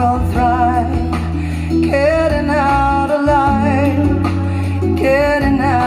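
A song played back through Mission ZX-2 hi-fi loudspeakers: a singer holds long notes with vibrato over guitar and a steady bass line.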